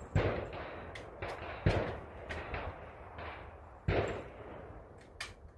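AR-15 rifle firing three single shots, spaced about one and a half to two seconds apart, each a sharp crack with an echoing tail. A few fainter cracks come in between.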